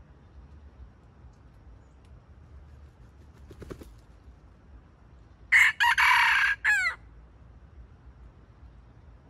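Wild red junglefowl rooster crowing once, a short crow of about a second and a half that ends in falling notes.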